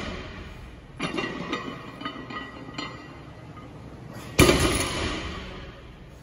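Iron weight plates on a loaded barbell clanking: a loud clang about four seconds in that rings out and fades, with a smaller clatter of clinks about a second in.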